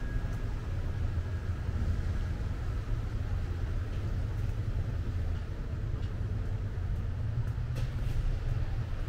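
Steady low rumble of city street traffic, with a faint tick or two near the end.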